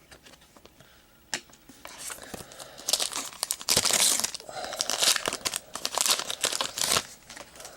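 Crinkling and tearing of trading-card pack wrapping as it is handled and pulled open, with a click about a second in and dense crackling from about two seconds in.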